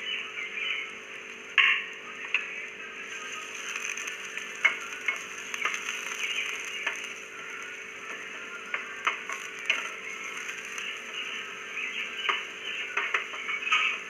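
Onions sizzling as they fry in hot oil in a frying pan, with a steady hiss. A spatula taps and scrapes the pan now and then as the onions are stirred, making irregular sharp clicks.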